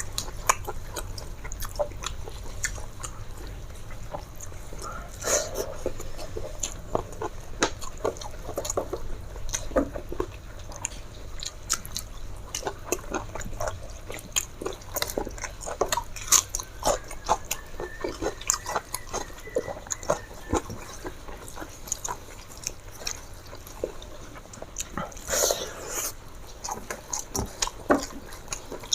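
Close-up mouth sounds of a person eating a meal of rice and chicken curry: chewing with wet smacks and clicks, irregular and continuous, with a louder cluster of smacks near the end.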